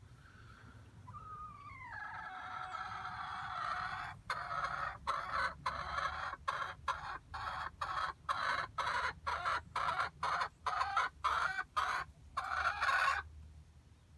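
A hen calling: a few drawn-out, pitch-bending calls, then a fast run of short repeated clucks about two a second, ending in a longer call.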